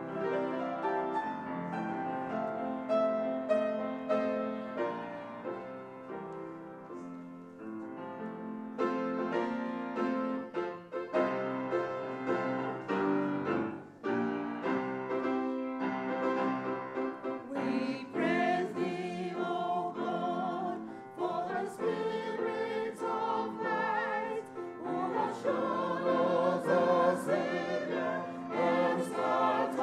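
Grand piano playing a hymn introduction, then a small choir begins singing the hymn with the piano about halfway through.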